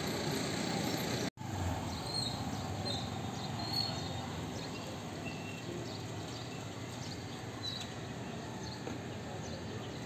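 Quiet small-town street ambience: a steady background hum with no clear single source. It cuts out for an instant about a second in. Short, high bird chirps follow over the next couple of seconds.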